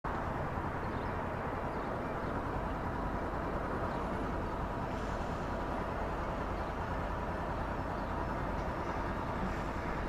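Onboard sound of a Honda CB500F motorcycle: its parallel-twin engine running under a steady rush of road and wind noise on the camera microphone.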